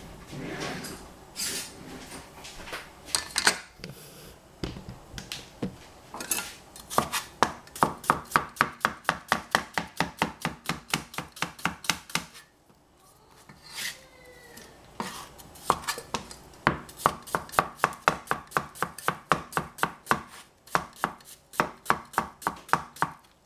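Cucumber being sliced with a Chinese cleaver on a cutting board: a few scattered knocks at first, then quick even chopping at about four or five strokes a second, with a pause of a couple of seconds about halfway through.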